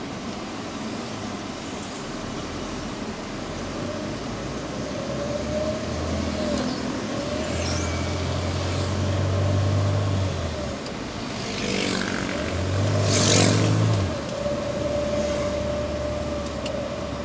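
Engine and road noise heard inside a moving car's cabin, the engine note rising and falling as the car speeds up and eases off twice. A louder swell about thirteen seconds in.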